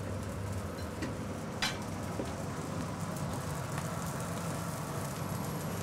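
Steady running noise of the moving Glacier Express, heard inside its galley car, with a short sharp clink of dishes about a second and a half in.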